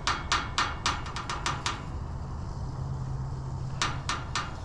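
A vehicle engine running at idle, with a regular run of sharp clicks about three a second that stops for a couple of seconds in the middle and starts again near the end.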